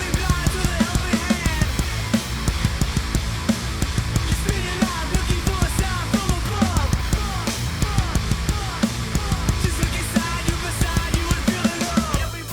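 Heavy rock song with a drum kit played hard in fast, dense strokes under gliding lead lines, the drums played live over the band's recorded track. The arrangement changes just at the end.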